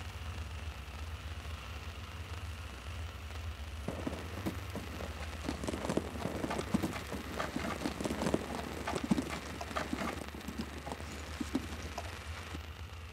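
A run of irregular light clicks and taps starting about four seconds in and thinning out near the end, over a steady low hum.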